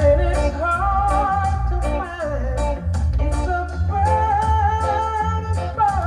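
A recorded song spun on DJ turntables: a sung vocal over pulsing bass and a steady drum beat.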